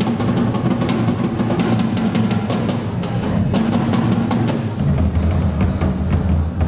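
Percussion ensemble playing drums live: a dense run of rapid strikes over a continuous low drumming, with a heavier, deeper drum layer coming in about five seconds in.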